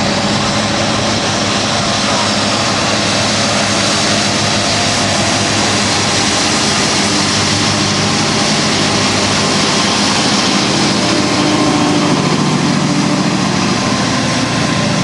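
Heavy diesel engine of a large self-propelled grassland machine running steadily at working speed. Its low engine note grows a little stronger about eleven seconds in.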